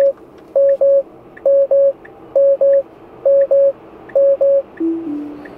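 Tesla Model S alert chime beeping in repeated pairs, about one pair a second. It keeps on after Autopilot has made an emergency stop because its hands-on-wheel warnings were ignored, and will not stop until Autopilot is disengaged. Near the end a lower two-note falling tone sounds, over faint road noise inside the cabin.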